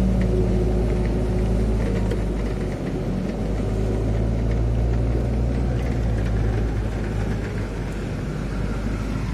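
Vehicle engine running with a steady low hum, heard from inside the vehicle.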